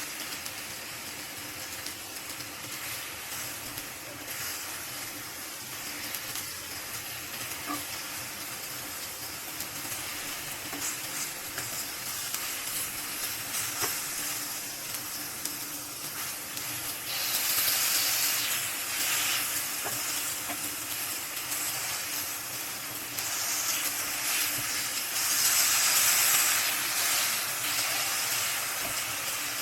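Food sizzling in oil in a frying pan: a steady frying hiss that grows louder about two thirds of the way in and again near the end.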